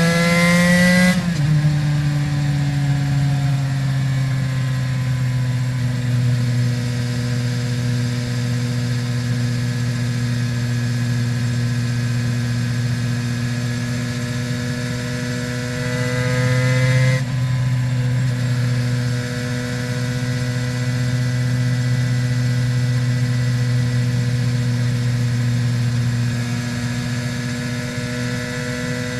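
Aprilia RS 250's two-stroke V-twin with Arrow exhausts under way: it revs up and drops sharply about a second in, as on an upshift, then runs at fairly steady revs. Past the middle it climbs again and drops sharply once more, then settles at steady cruising revs.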